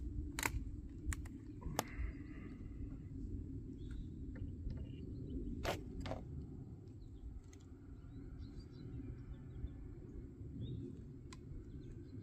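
Sharp metallic clicks and clacks of a .410 shotgun being handled and readied to fire, several in the first two seconds and two more about six seconds in, over a low steady rumble.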